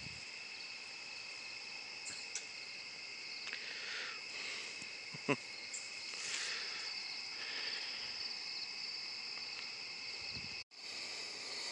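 Night chorus of crickets and other insects, a steady high trilling, with one sharp tick about five seconds in. The sound cuts out for a moment near the end.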